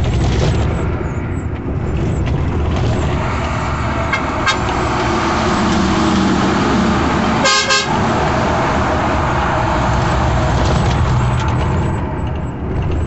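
Truck cab interior on the highway: steady engine and road noise while cruising. A short horn toot sounds about seven and a half seconds in.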